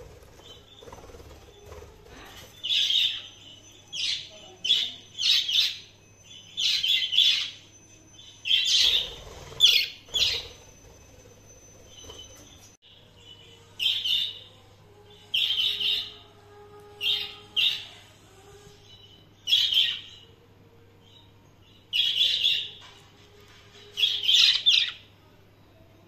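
Pet budgerigars chirping: loud, short calls repeated about once a second, with a pause of a few seconds in the middle.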